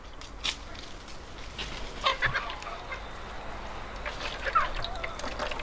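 Chickens clucking now and then, over the wet squelch and drip of a cloth bag of ground walnuts being squeezed in a bowl of water.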